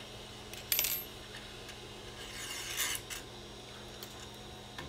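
Metal parts of a 3D printer's Z-axis being fitted by hand: a sharp click about a second in, then a scraping rub near three seconds, followed by a few light clicks, as the threaded rod, set collar and bearing are worked into place.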